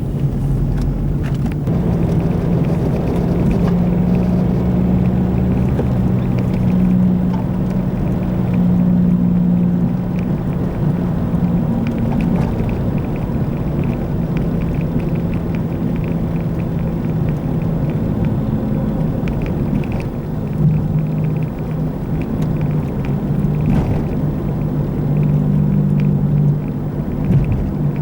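Car driving on the road with a low drone from a worn wheel bearing over the tyre and road rumble; the drone shifts a little in pitch as the speed changes.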